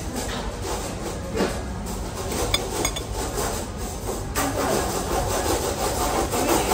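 Light clinks of chopsticks and dishes at a meal table, a few scattered between about one and three seconds in, over a steady background din.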